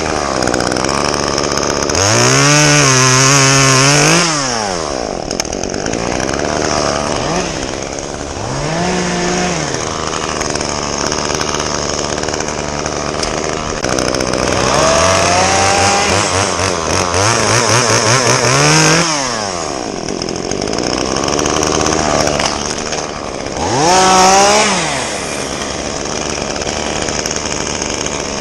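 Chainsaw idling and revving up and back down again and again: a couple of seconds in, again around nine seconds, in a longer run from about fifteen to nineteen seconds, and once more near the end.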